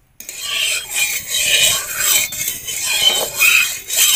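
A metal spatula scraping around the inside of a metal kadai, spreading hot oil across the pan, in repeated strokes about twice a second. It starts suddenly just after the beginning.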